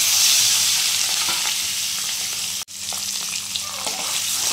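Peeled boiled eggs sizzling loudly as they fry in hot mustard oil in a metal kadhai, with a metal spatula stirring them in the later part. The sizzle breaks off for an instant a little before three seconds in.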